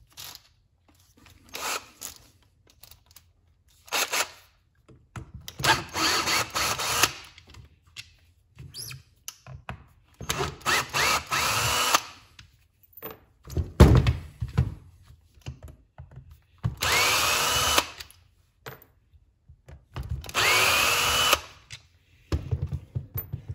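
HART cordless drill/driver running in about four short bursts, each one to two seconds long, with a whine that rises as the motor spins up, backing T20 Torx screws out of an impact driver's gearbox housing. Clicks from handling fall between the bursts, and there is a heavy thud about halfway through.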